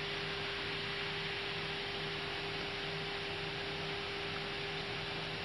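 Steady cockpit noise of an Airbus A320 while taxiing: an even hiss with a steady low hum underneath.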